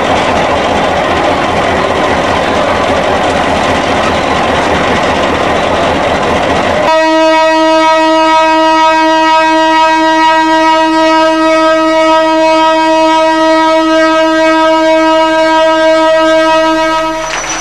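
A loud, dense noise for about seven seconds, then a diesel train's horn sounding one long, steady note for about ten seconds before it stops near the end.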